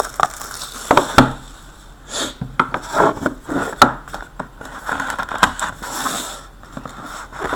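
Trading cards being handled on a table: irregular taps, scrapes and rubbing as cards and their holders are slid and set down.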